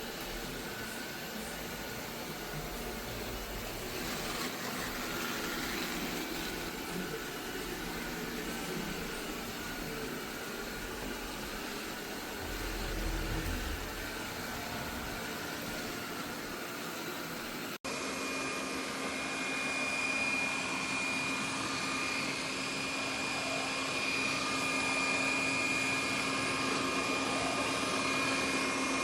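Roborock Qrevo Curv S5X robot vacuum running with a steady motor hum and airflow noise. After a cut about two-thirds of the way in, it settles into an even whine with a constant high tone.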